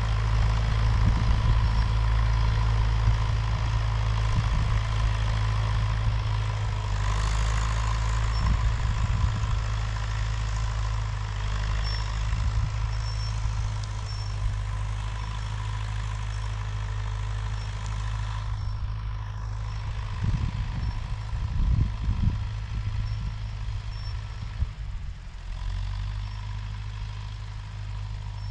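Tractor diesel engine running steadily with a constant low hum, with a few irregular low rumbles about two-thirds of the way in.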